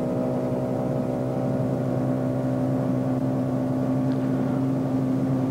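Steady, unchanging drone of a car engine and road noise heard from inside the car's cabin.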